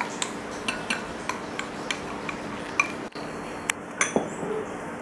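A small glass bowl clinking and knocking against a larger glass mixing bowl as paste is scraped out of it, in a quick series of light clicks; after about three seconds a few taps of a wooden spoon in the glass bowl.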